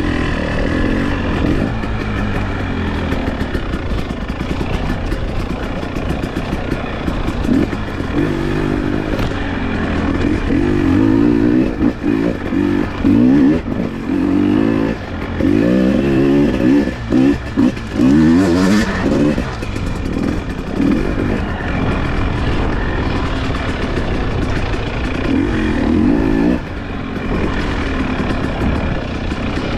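Enduro dirt bike engine running as it is ridden, the throttle opening and closing. Its pitch rises and falls in bursts through the middle and once more near the end.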